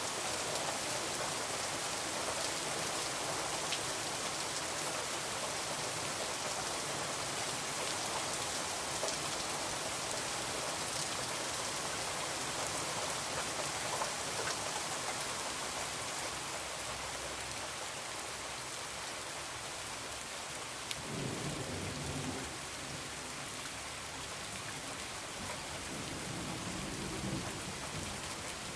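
Heavy rain falling steadily, with low rumbles of thunder about two-thirds of the way in and again near the end.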